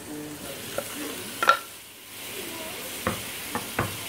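Chopped tomatoes scraped off a wooden board with a knife into a hot aluminium pot of frying onion masala. There is a ringing knock on the pot about one and a half seconds in, then a steady sizzle as the tomatoes hit the hot butter. A wooden spoon stirs and knocks against the pot three times near the end.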